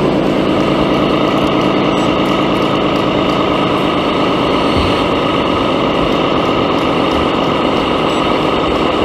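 Steady engine running sound, idling evenly with no change in pitch.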